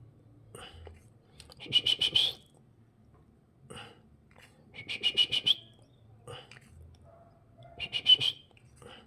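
Canary hatchlings begging to be fed: three bursts of rapid, high-pitched cheeping, each under a second long, about three seconds apart.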